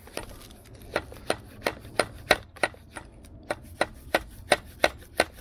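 Light, rapid taps of a steel claw hammer on a metal part on an outboard's driveshaft, about three a second and fairly even, driving the driveshaft's Woodruff key into place above the water pump plate.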